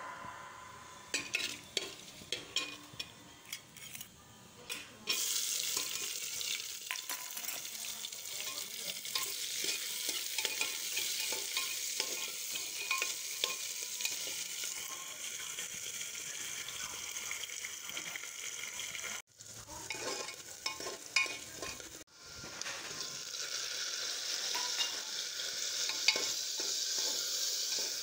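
Cumin seeds and curry leaves crackling and spluttering in hot oil in an aluminium pot. From about five seconds in, a steady sizzle follows as sliced onions fry and a spoon stirs them against the pot. The sound cuts out abruptly twice in the second half.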